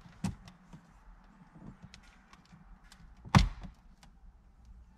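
Red plastic trim pry tool worked against the Nissan Titan's plastic dashboard trim: scattered light plastic clicks and taps, with one loud knock a little over three seconds in.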